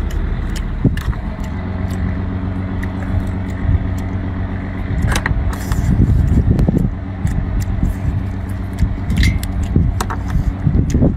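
Mussel shells clicking and cracking as they are pried open and picked apart by hand, over a steady low rumble.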